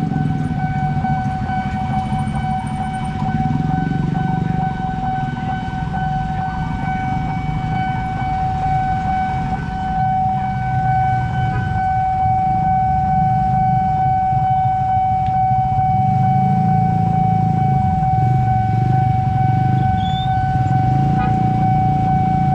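Railway level crossing warning alarm sounding one steady, unbroken high tone, the signal that a train is coming and the crossing is closing. Under it is the low rumble of motorbike and car engines at the crossing.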